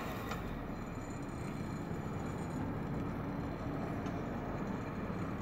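International TD8G crawler dozer's diesel engine running steadily as the dozer skids a log up a steep slope.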